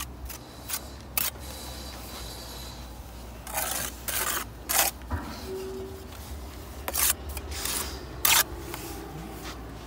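Steel bricklaying trowel scraping mortar and knocking against clay bricks as a brick's end is buttered and bricks are laid: short scrapes and taps spread through, with a longer scrape about three and a half seconds in.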